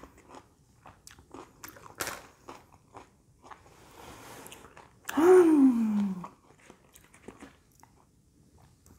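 Close-up chewing of a mouthful of fresh salad: soft crunches and wet clicks of the mouth. About five seconds in comes a loud hummed 'mmm', falling in pitch for about a second.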